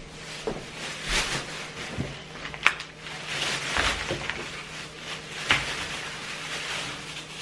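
Thin plastic grocery bag rustling and crinkling as it is handled and opened, with two sharp knocks, about a third of the way in and again past the middle. A faint steady hum runs underneath.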